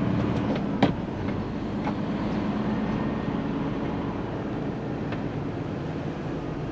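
Hino truck's diesel engine running at low road speed, heard inside the cab with road rumble, and a sharp knock about a second in.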